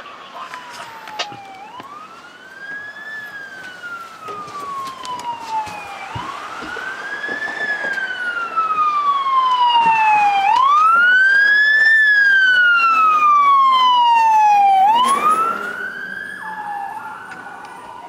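Fire engine siren on an emergency run, wailing in slow cycles: each a quick rise and a long slow fall, about every four and a half seconds. It grows louder as the engine approaches, peaks, then fades and changes pattern about fifteen seconds in as it moves away.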